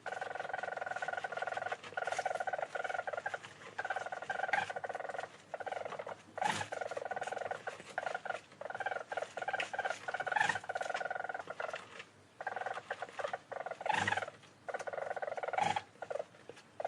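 Small weasel-family animal chattering: rapid trilling runs a second or two long, broken by short pauses, with a few sharper calls among them.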